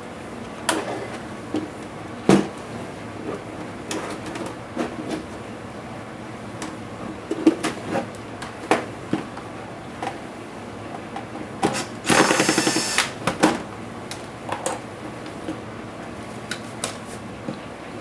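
Clicks, taps and knocks of plastic and metal laptop parts and tools being handled during disassembly of an ASUS G1S laptop, with one brief rapid rattling buzz about twelve seconds in.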